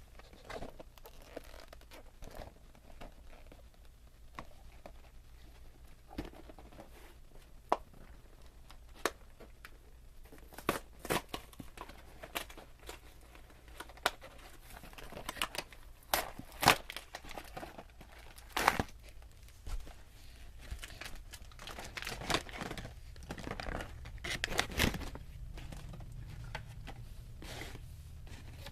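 Plastic packaging of a Shopkins 12-pack being handled and torn open: crinkling and tearing with scattered sharp clicks and snaps, busiest in the second half.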